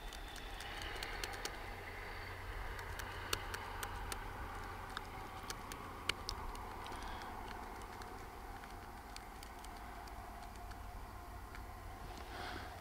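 Faint, irregular clicks of a computer being used to step through photos, over a low steady hum; two of the clicks, about three and six seconds in, stand out louder.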